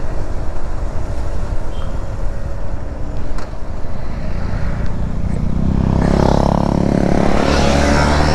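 Motorcycle engine running under way with wind noise on the rider's microphone. About six seconds in, the engine grows louder as the bike accelerates.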